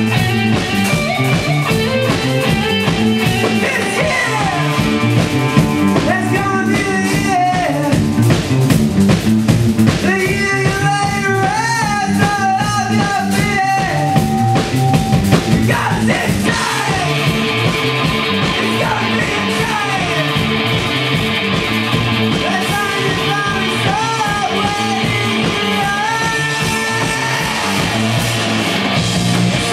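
Live rock band playing electric guitars and a drum kit, with a male singer singing into the microphone over it.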